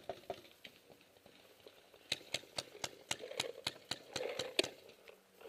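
Paintball gunfire: a few scattered sharp pops, then a quick irregular run of them, several a second, from about two seconds in.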